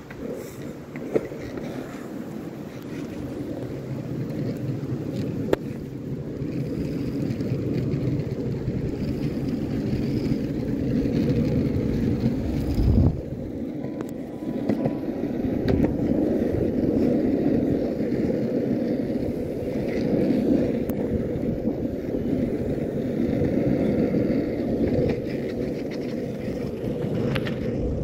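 Skateboard wheels rolling on an asphalt path: a steady rumble that swells and eases with speed. Occasional sharp clicks, and a heavier knock about halfway through.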